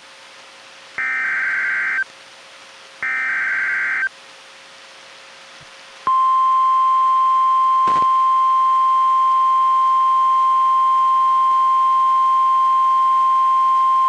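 NOAA Weather Radio emergency alert signal from a weather radio's speaker. Two one-second bursts of warbling digital SAME header tones about a second apart, then about six seconds in the steady 1050 Hz warning alarm tone begins, announcing a flash flood warning. A faint click comes about eight seconds in.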